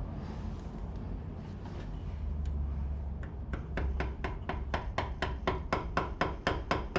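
Hammer tapping rapidly on a 17 mm socket, driving a pilot bushing into place, about four light, even taps a second starting about three seconds in.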